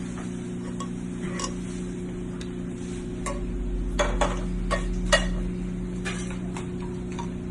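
Kitchen utensils clinking and scraping against a plate and pan while food is plated, with a cluster of sharper clicks around the middle, over a steady low hum.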